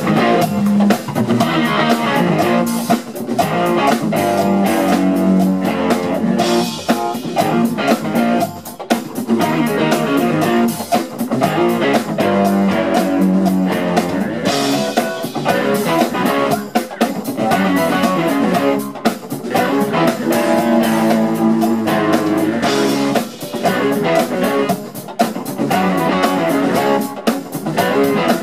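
Live instrumental funk band playing: electric guitars over a drum kit.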